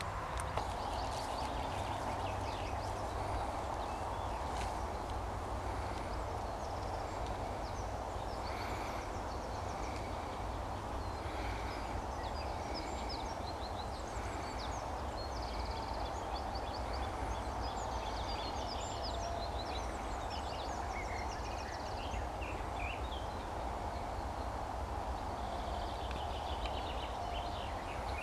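Open-field ambience: a steady low wind rumble on the microphone, with birds giving scattered short high chirps and trills.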